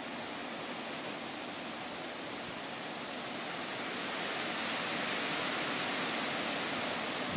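Steady, even hiss of outdoor background noise that grows slightly louder in the second half, with no distinct clicks or calls.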